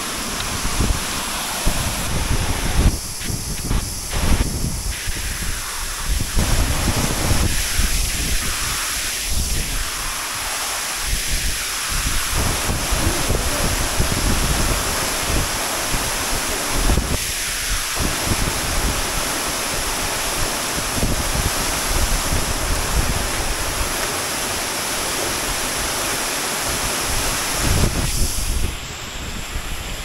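Waterfall pouring into a plunge pool: a steady rush of falling water, with wind buffeting the microphone in uneven low gusts. The sound drops a little in level just before the end.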